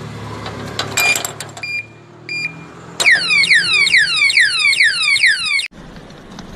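Anti-theft alarm padlock: a click and a few short beeps, then its siren going off loudly in quick falling sweeps, about four or five a second, which cut off suddenly.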